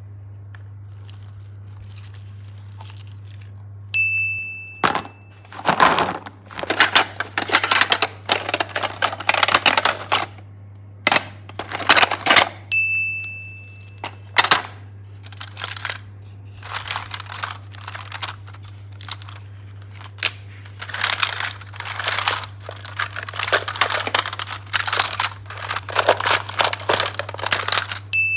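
Slime being squished and worked by hand in irregular crackly, sticky bursts. A short bright ding chime sounds about four seconds in, again about thirteen seconds in, and near the end. A low steady hum runs underneath.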